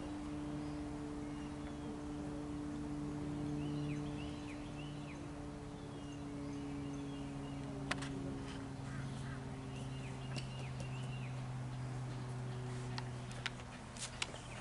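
A steady low mechanical hum whose pitch drifts slightly. Twice, a bird gives a short run of three or four chirps.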